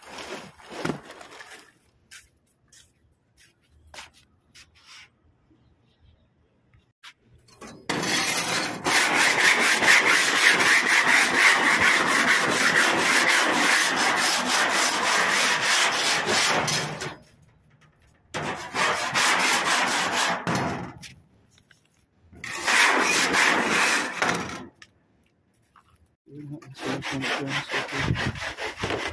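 Rapid scraping and rubbing on the sheet-metal panel of an air-conditioner unit while its insulation is being replaced. It comes in a long bout of about nine seconds, then three shorter bouts.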